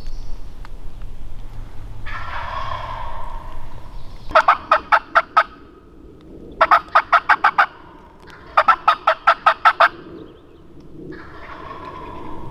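Turkey calling: three loud series of rapid, evenly spaced notes, each about a second long, with softer raspy calling about two seconds in and again near the end.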